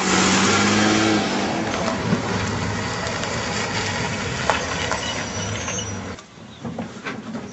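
Pickup truck engine running as the truck pulls away, a steady hum that eases off and cuts off about six seconds in, followed by a few faint ticks.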